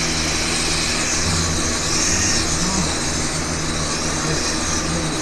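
Nano quadcopter's four small motors and propellers running steadily, a buzzing hum under a high whine that wavers up and down in pitch.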